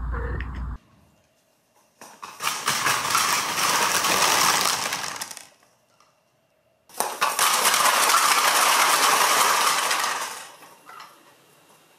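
Dozens of empty cardboard toilet paper tubes tumbling and clattering onto a wooden floor, a dense rattle of many light knocks. It comes in two bursts of about three and a half seconds each, with a silent gap between them.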